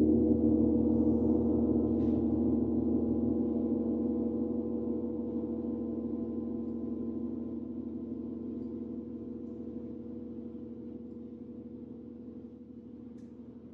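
Large gong ringing on after a single stroke: a steady blend of several low tones that fades slowly and evenly.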